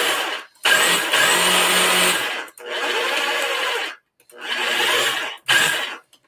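Electric food processor pulsed on and off, its motor running in runs of about one to two seconds with short stops between, chopping a wet vegetable mixture.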